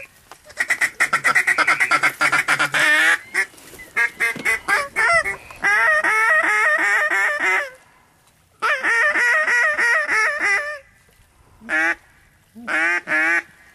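Waterfowl calling in rapid strings of loud, honking quacks, about eight to ten notes a second. The runs last one to three seconds each, with short breaks and a longer pause about eight seconds in.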